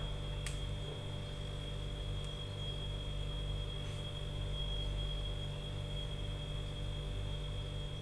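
Steady low electrical-type hum with a thin high-pitched whine running over it, and one small click about half a second in.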